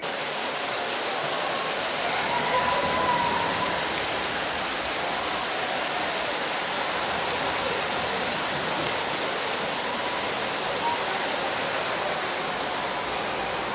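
Water pouring down in a steady cascade from a boat-shaped fountain feature and splashing into a pond, close by.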